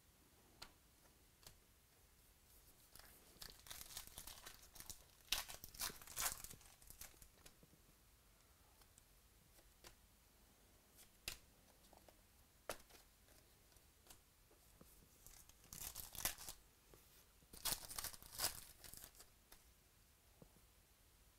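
Faint rustling and scraping of trading cards being handled and slid off a stack, coming in short spells with quiet gaps between them.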